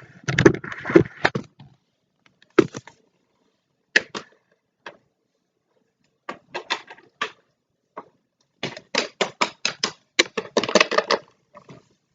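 Small plastic Littlest Pet Shop toy figures tapping and clicking against a hard surface: a few scattered single taps, then a quick run of taps, several a second, in the last third.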